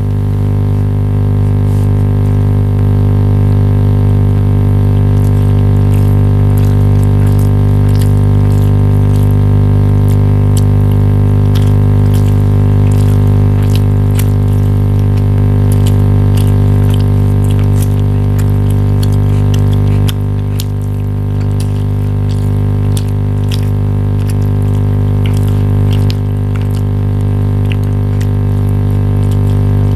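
A loud, steady droning hum with a low pitch and many overtones, dipping in level about 20 seconds in, with faint scattered clicks over it.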